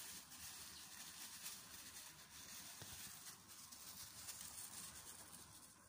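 Near silence with faint, scattered rustles of a thin clear plastic bag being gathered by hand around a grafted citrus branch.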